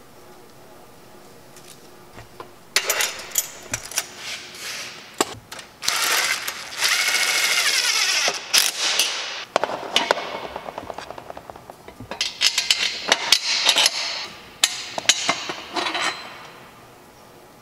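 Cordless impact driver running in a sustained burst of a couple of seconds, driving the T-bolt nut of a stainless steel V-band clamp, between clicks and clinks of metal exhaust parts being handled and fitted.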